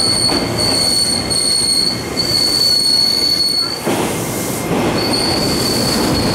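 Electric commuter train's steel wheels squealing on curved track as it runs through the station, a steady high squeal with brief breaks over the rumble of the cars. The squeal drops out briefly about four seconds in, then returns with the rumble of another train moving past.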